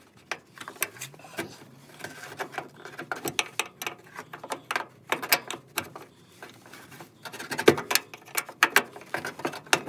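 Hand wrench turning and being repositioned on a bench-seat mounting bolt, making irregular metal clicks and clinks that come in quick clusters, loosening the bolt.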